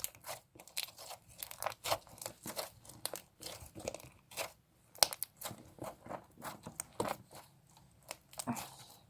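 Slime being squeezed and stretched by hand, giving off irregular crackling pops and clicks, several a second.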